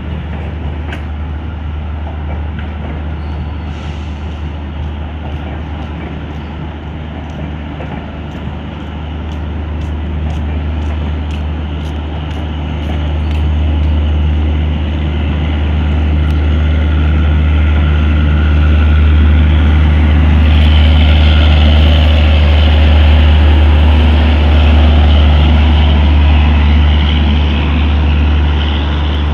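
Passenger train coaches rolling past as the train pulls out, wheels clicking over rail joints, over a steady low engine drone. The rolling noise grows louder and harsher about two-thirds of the way through, as the rear coaches pass close by.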